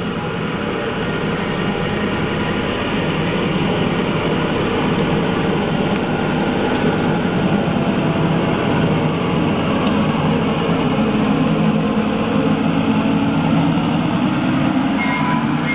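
Ride-on miniature train's scale diesel locomotive running steadily as it approaches, its engine and wheels on the track growing gradually louder.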